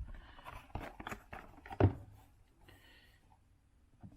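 Hands handling a cardboard trading-card box and its packaging: a few soft knocks and brief rustles, the loudest knock just under two seconds in, then quiet handling.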